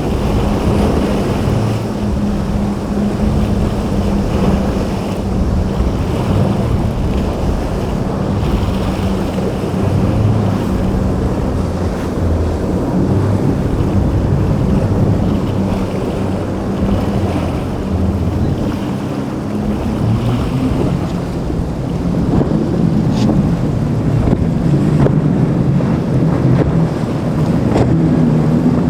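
Boat engines running through rough inlet water, with waves and surf and wind blowing on the microphone. The engine hum rises and falls in pitch.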